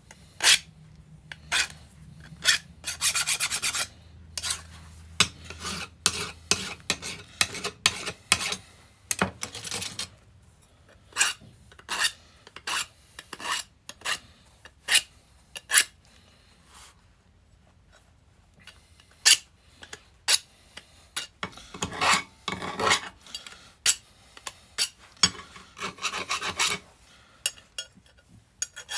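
Hand file scraping in short, irregular strokes across the edge of a small steel block, knocking down a sharp edge. The strokes pause for a few seconds about halfway through, then resume.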